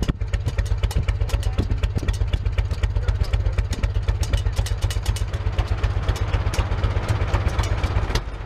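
International 574 tractor engine running steadily, heard from beside its vertical exhaust stack with the rain cap flap lifted: a rapid, even train of exhaust pulses with a clattery edge.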